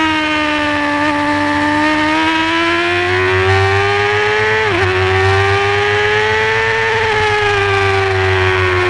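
Honda supersport race motorcycle's engine heard on board at high revs, around 12,000 to 13,000 rpm. The high-pitched note rises steadily and dips sharply for a moment about halfway through. It climbs again, then falls away over the last couple of seconds.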